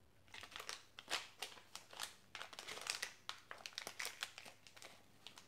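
Crinkling of a small plastic packet as a TS100 soldering-iron tip is handled and taken out of it, a run of irregular crackles that thin out near the end.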